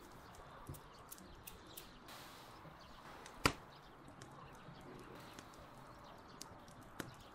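Faint scattered ticks of seasoning sprinkled by hand over a raw steak on a steel tray, with one sharp click about halfway through and a smaller one near the end.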